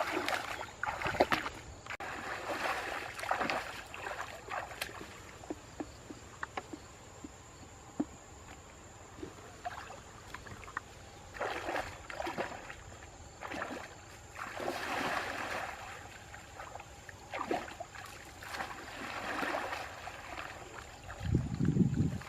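Water splashing and sloshing in irregular bursts every few seconds, with scattered small sharp knocks between them.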